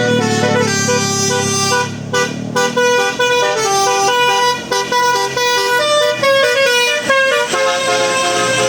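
Indonesian telolet bus horn playing a quick melody of changing notes, with a brief break about two seconds in. A low engine hum runs under the first couple of seconds.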